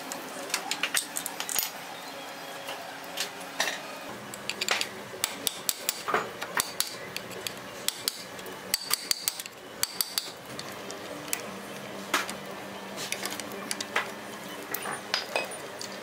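Metal hand tools clinking and clicking against the exposed gears and nuts of a Yamaha FZ engine's balancer drive, in many short, irregular strikes.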